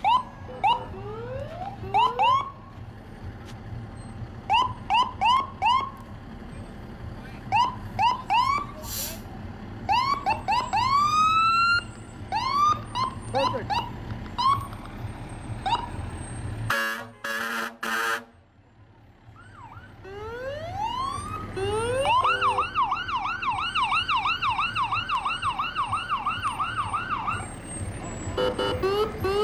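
Emergency-vehicle electronic sirens going past. For the first half they give short rising whoop chirps in quick pairs and threes. There is a brief loud burst around the middle. Then a siren winds up and runs a fast yelp of about three cycles a second near the end.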